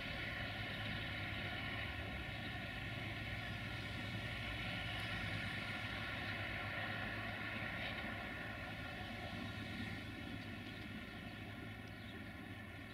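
Distant diesel-hydraulic shunting locomotive (LDH1250) with its engine running: a steady drone that fades a little in the last few seconds.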